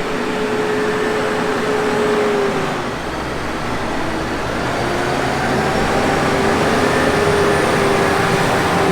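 Tractor engine running under way, a steady loud drone with a whine that dips slightly about three seconds in and then climbs back.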